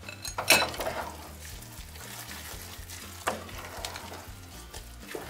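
Wooden spoon stirring ground biscuit crumbs into a hot mixture of melted margarine, sugar and cocoa in a pot, a steady wet scraping and sizzling. There is a sharp knock about half a second in and another about three seconds in.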